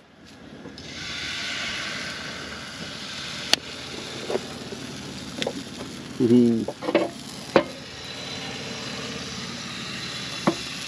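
Food sizzling in a hot frying pan, a steady hiss with a few sharp clicks.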